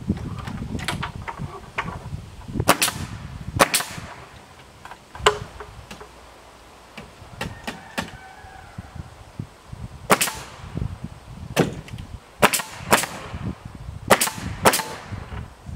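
Pneumatic nail gun fed by an air hose, firing nails into rough-sawn wooden trim boards: a series of sharp shots at irregular intervals, some in quick pairs.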